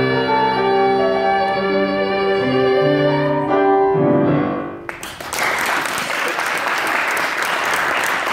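Piano playing the final chords of the song's accompaniment, dying away about four and a half seconds in. Audience applause then starts just before five seconds in and continues.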